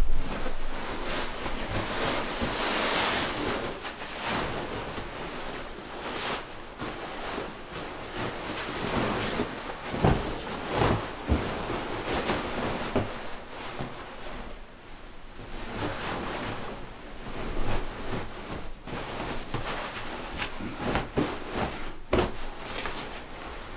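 Rustling of a pullover parka's fabric as it is pulled off over the head and folded, in uneven swells, with a few light knocks.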